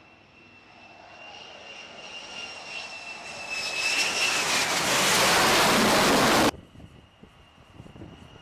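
F-35C Lightning II jet engine: a high steady whine with rushing jet noise that grows steadily louder, peaks about five to six seconds in, then cuts off suddenly, leaving a fainter whine.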